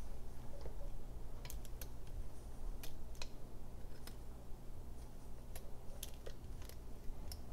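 Light, scattered clicks and ticks of small metal and plastic carburetor parts being handled as a tiny spring and a plastic cap are fitted onto the end of a Weber 32/36 throttle linkage. A steady low hum runs underneath.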